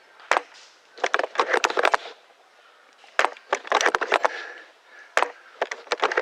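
Quick clusters of sharp clicks and cracks, each group lasting about a second, with short pauses between them.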